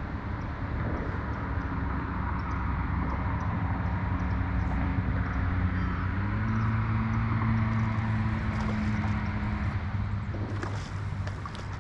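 Boat motor running steadily; its pitch steps up a little about halfway through and eases off near the end.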